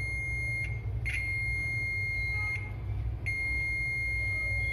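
Digital multimeter's continuity buzzer giving a steady high beep while its probes touch points on a laptop motherboard. The beep breaks off twice as the probe contact is lost and made again. The beep means low resistance between the probe tips, the test used here to hunt for a short on the board.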